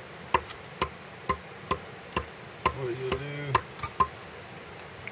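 Steady blows of a hand tool on hard firewood, about two a second, as the wood is chopped.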